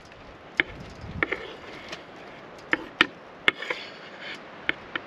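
Kitchen knife chopping tomatoes on a wooden cutting board: about nine sharp, irregularly spaced knocks of the blade striking the board.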